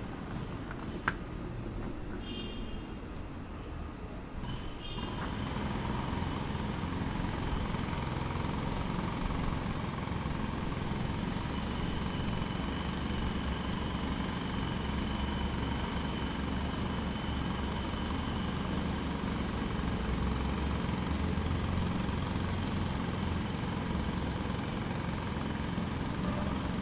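Jackhammer hammering steadily over a low machine rumble, growing louder about five seconds in.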